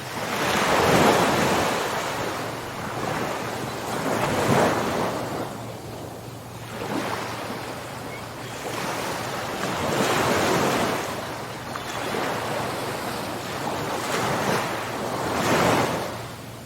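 Ocean waves breaking and washing ashore, each surge swelling and fading every few seconds.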